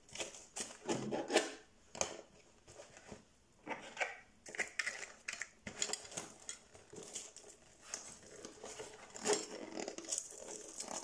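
Small tools and a hand pump clicking and knocking against each other inside a small fabric puncture-repair bag as it is handled, with the bag's fabric rustling. The clicks come irregularly, several a second at times.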